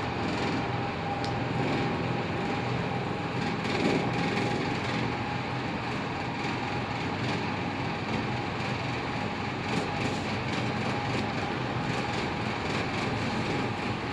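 Passenger lift car travelling: a steady running hum and rush of air inside the car, with a faint constant whine.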